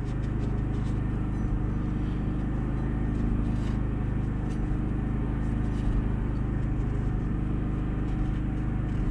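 A steady low machine hum, with faint light clicks and rubbing from hands wiping the engine block's deck and cylinder with a shop towel.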